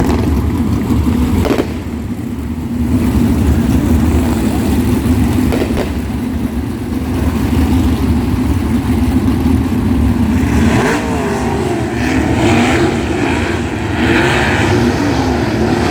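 Several 360 sprint cars' V8 engines running together, a steady drone, with several engines revving up and down from about ten seconds in.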